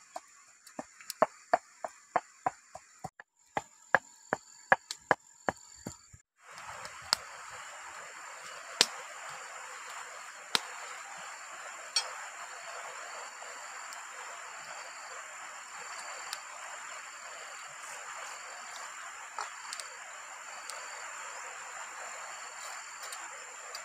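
Pestle pounding red chilies in a mortar: sharp, even knocks about three a second, with a brief pause near the middle. After about six seconds these give way to a steady hiss with a thin high insect-like tone and a few scattered clicks.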